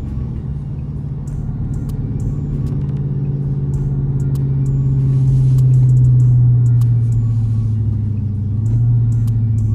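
Dodge Charger's engine drone heard inside the cabin while driving, a low hum that swells about midway, eases off, and swells again near the end.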